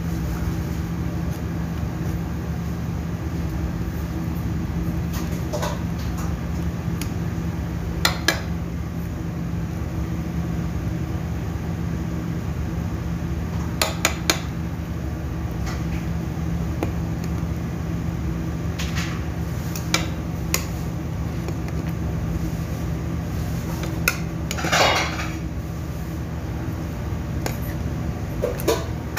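Metal ladle stirring thick porridge in an aluminium pot, scraping and clinking against the pot with a sharp knock every several seconds, over a steady low hum.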